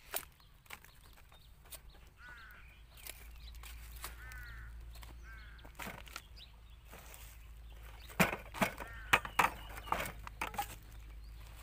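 A long metal rod jabbing and scraping through packed dirt and plastic trash: a quick run of sharp knocks and crackles starting about eight seconds in. Earlier, a bird calls several times.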